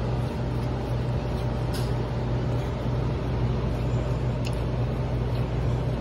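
Steady low mechanical hum at a constant level, with a couple of faint ticks.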